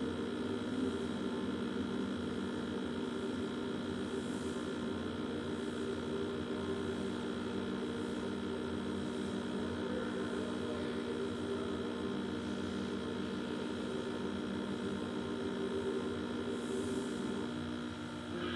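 Steady hum with several held tones, unchanging throughout, coming through an old CRT television's speaker; it starts abruptly and cuts off at the end.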